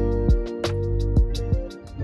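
Outro background music: sustained instrument notes over a beat of drum hits.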